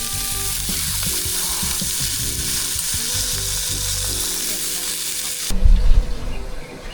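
Food sizzling in a hot pan or on a grill, a steady frying hiss. It cuts off abruptly about five and a half seconds in, followed by a loud low thump.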